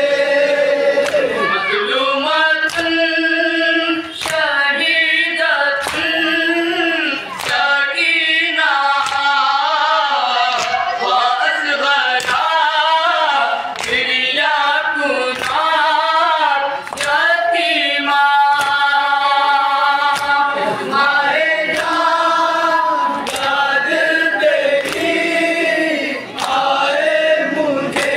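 A noha, a Shia mourning lament, sung by a lead voice with a group of voices joining in, over a steady beat of chest-beating (matam) strokes.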